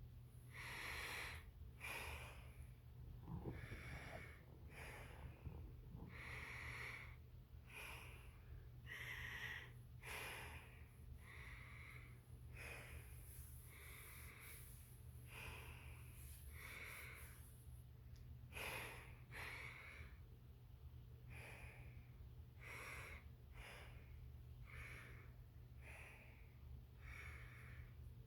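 Faint breathing in and out through a military-style rubber gas mask, about one breath a second, over a low steady hum.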